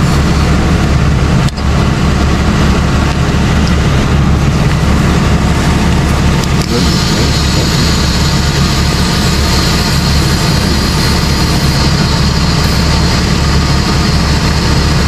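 Engine idling steadily with a low drone while a tire is pumped up through an air chuck on its valve stem. There is a click about a second and a half in, and a thin air hiss comes in about halfway through.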